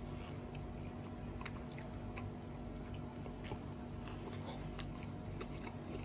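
A person chewing a mouthful of ciabatta sandwich with egg and crispy lamb streaks: faint mouth sounds and small clicks, with one sharper click about five seconds in, over a low steady hum.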